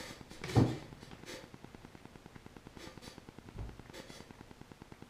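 Small eating sounds at a table: a thump about half a second in, a low knock later and a few light clicks, over a faint, fast, steady ticking of about eight a second.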